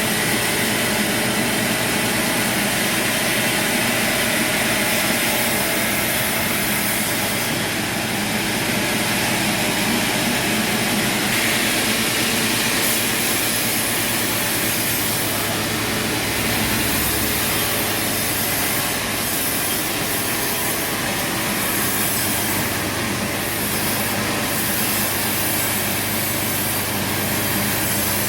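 Sawmill machinery running steadily, with a saw cutting through wood and a constant engine hum underneath.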